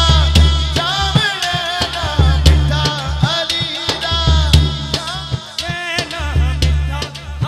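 Male voice singing a Punjabi manqabat (devotional song in praise of Ali) through a microphone and PA, with gliding, ornamented phrases over heavy drum strokes.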